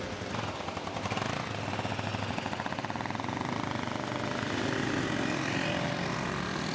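Enduro motorcycle engine running close by with a fast, even pulse, amid passing street traffic.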